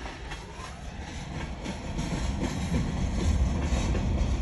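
Diesel freight locomotives running past with a steady low rumble, along with the noise of the train.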